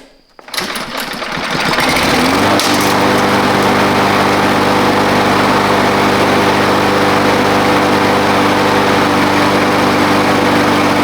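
Kohler XT6 single-cylinder engine on a Husqvarna walk-behind lawn mower, pull-started with its clogged air filter removed. It catches about half a second in, runs up to speed over the next second or two, then runs steadily. It now starts, which confirms that the blocked air filter was why it would not.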